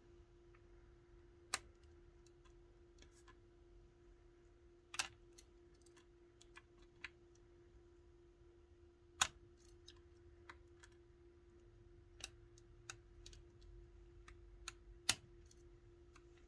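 Lock-picking tools clicking and ticking in a high-security gumball machine wafer lock as the wafers are lifted: about half a dozen sharp clicks at irregular intervals, the loudest near the end, with many fainter ticks between them. A faint steady hum sits underneath.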